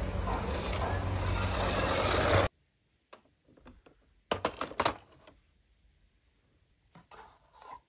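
Toy school bus running across a tiled floor: a steady whirring noise with a low hum that cuts off sharply about two and a half seconds in. Then mostly quiet, with scattered light plastic clicks and knocks of toy vehicles being handled.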